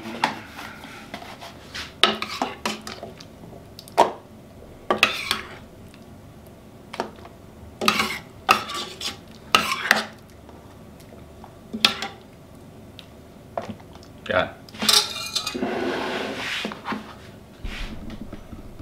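Metal ladle clinking and scraping against a stainless steel pot as thick lentil soup is scooped out and served into plastic tubs, in irregular knocks with a longer scrape about three-quarters of the way through.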